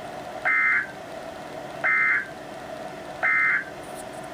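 NOAA Weather Radio SAME end-of-message data bursts: three short, harsh digital screeches about 1.4 s apart, received over the radio with hiss between them. They mark the end of the severe thunderstorm warning broadcast.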